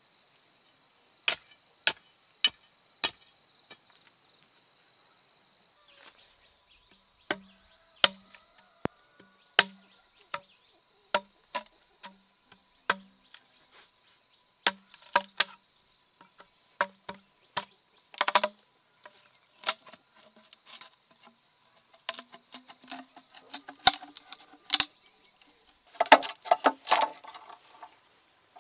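A steady insect buzz with a few sharp knocks of a bar working soil around a bamboo post, then a machete chopping into a green bamboo pole, about two blows a second, each with a short dull thud. Near the end quicker, ringing strikes of the machete split the bamboo lengthwise on a wooden block.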